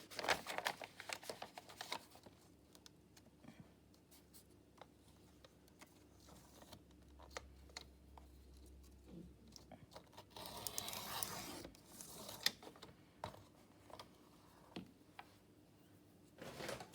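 Faint rustling and crinkling of dyed, crinkled paper sheets being handled and cut, with scattered light clicks and a louder rustle about ten seconds in.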